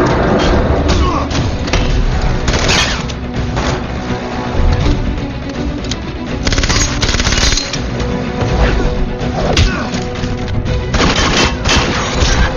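Action-film fight soundtrack: a dense dramatic score under repeated gunshots and hard impact hits, with clusters of shots and blows about three seconds in, around seven seconds in and again near the end.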